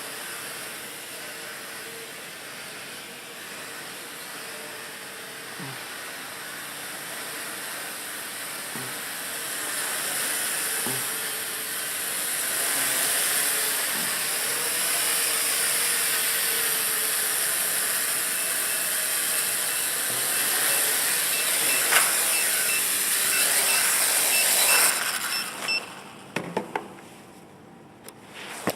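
WL Toys V949 quadcopter's motors and propellers whirring in flight, growing louder through the middle, then cutting off about three seconds before the end, followed by a few knocks.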